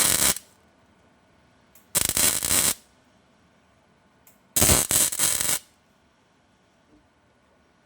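MIG welder laying tack welds on thin steel car-body panel flanges: three short bursts of arc crackle, each just under a second long. The first is already going at the start and cuts off just after, the second comes about two seconds in, and the third about four and a half seconds in.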